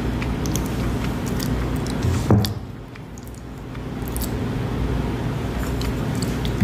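Close-miked ASMR mouth sounds: scattered wet lip and tongue clicks over a steady low hum, with a thump about two seconds in. Around four seconds in comes a sip of wine from a stemless glass.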